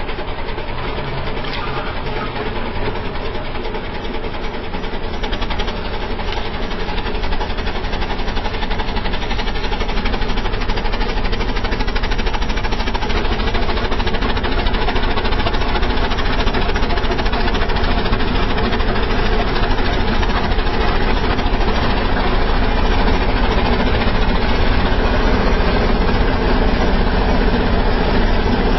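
Diesel engines of a Mahindra Arjun Ultra-1 555 DI and a Swaraj 744 FE tractor running hard under load, as one tows the other out of deep mud. The engine sound is steady and grows gradually louder over the first several seconds.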